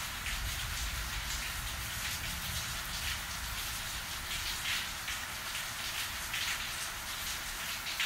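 Steady rain falling in a thunderstorm: an even hiss of drops with irregular brighter splashes, over a low rumble that is strongest in the first second or so.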